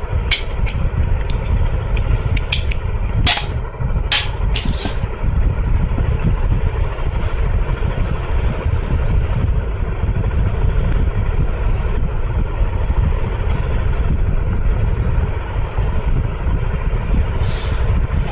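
A few sharp plastic clicks in the first five seconds as the lid of a 12-volt 7 Ah sealed lead-acid battery is prised off, over a steady low background rumble.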